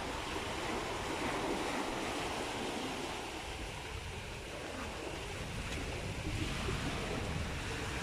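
Small sea waves breaking and washing up a sandy beach in a steady wash of surf, with wind rumbling on the microphone.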